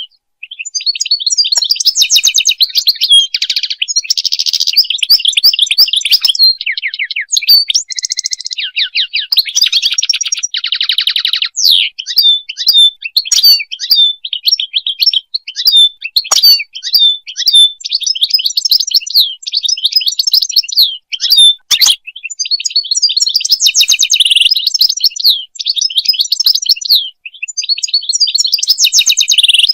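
European goldfinch singing: a long run of rapid, high twittering notes mixed with buzzy trills, broken by a few short pauses.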